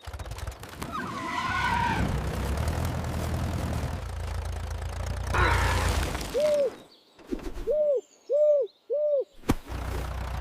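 An old tractor's engine runs with a steady low rumble for about the first six and a half seconds. Then come four short hoots a little under a second apart, each rising and falling in pitch.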